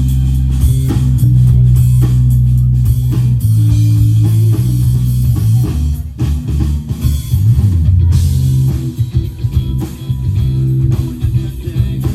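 Live rock band playing an instrumental passage during a sound check: guitar, bass guitar and drum kit together, with a heavy sustained bass line.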